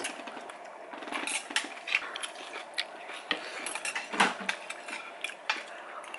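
Cutlery clinking against bowls as people eat soup: scattered light clinks, with one louder clink about four seconds in.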